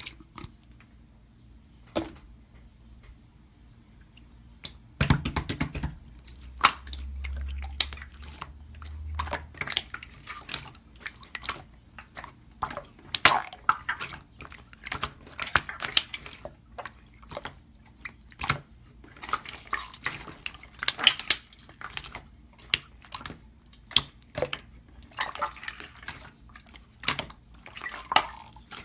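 Slime being squished and pressed by hand, making irregular wet, sticky clicks and pops, with a brief low rumble early on.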